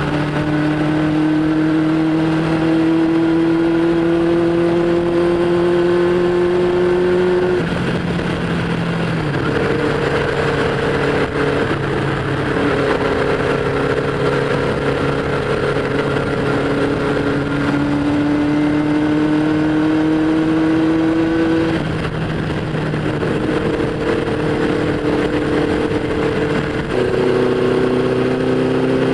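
Honda CB500 Four's air-cooled inline four-cylinder engine running under way at road speed, with wind rush. The engine note climbs slowly, drops sharply about eight seconds in and again past twenty seconds, then climbs again.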